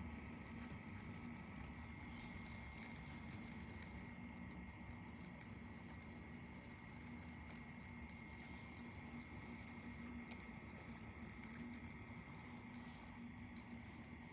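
Humidifier running: a faint steady hum with small scattered ticks and drips of water.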